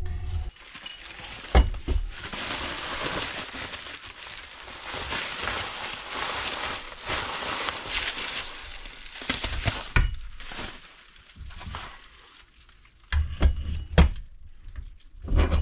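Plastic bubble wrap rustling and crinkling as it is pulled off a carburettor, for most of the first ten seconds. Then a few sharp knocks as metal Holley carburettors are picked up and set down on the bench, several of them close together near the end.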